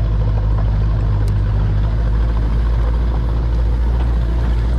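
Safari jeep's engine running steadily, a constant low rumble with road noise over it.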